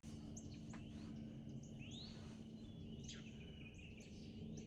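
Birds calling outdoors: short high chirps repeat throughout, and a rising whistled note comes about two seconds in. Under them run a steady low hum and faint background noise.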